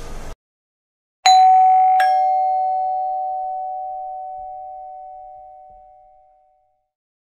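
Two-tone chime doorbell ringing once, 'ding-dong': a higher note, then a lower one about three-quarters of a second later, both ringing on and fading away over about five seconds.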